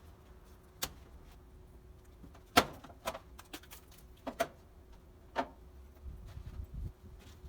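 Several short, sharp knocks and clicks at irregular intervals, the loudest about two and a half seconds in, over a faint steady hum.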